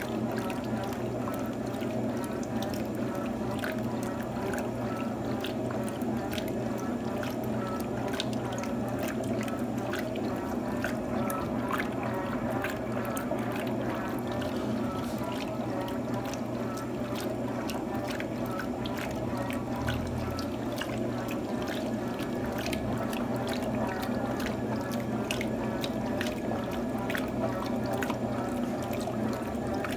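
Electrolux TOP8A top-loading washing machine running, with water pouring and splashing steadily over a low hum.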